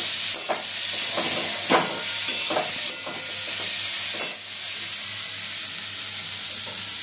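Moong dal stuffing sizzling in oil in a non-stick kadhai while a metal spatula stirs and scrapes it in a series of short strokes. The stirring stops after about four seconds, and a steady sizzle goes on.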